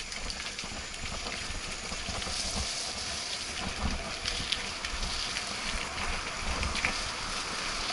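Wind buffeting the camera microphone over the rolling rumble and rattle of a mountain bike riding a dirt trail, with scattered clicks and knocks.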